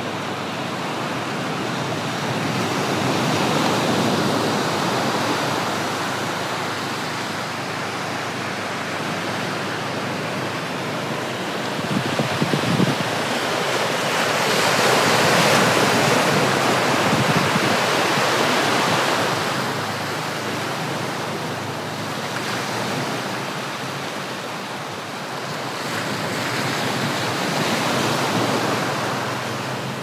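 Sea surf breaking and washing up the beach, a steady rush that swells louder and falls back in slow surges several seconds apart, with wind buffeting the microphone.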